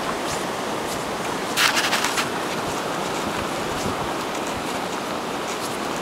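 Blizzard wind blowing steadily and buffeting the microphone, with a stronger gust about a second and a half in.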